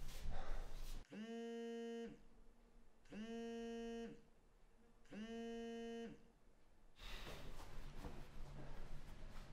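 A telephone ringing on an outgoing call: three even one-second ring tones, a second apart. Low room noise follows them.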